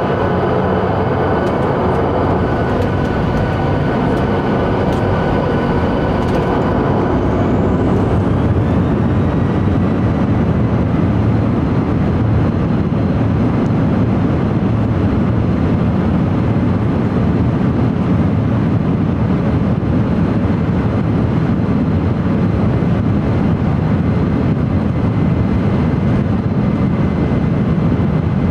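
Boeing 737-800's CFM56 turbofan engines heard from inside the passenger cabin during takeoff: a whine rises in pitch about six to eight seconds in as the engines spool up, then a steady loud roar with a deep rumble underneath.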